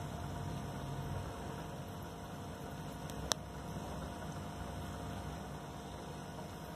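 Steady hum and hiss of running aquarium equipment, with a single sharp click about halfway through.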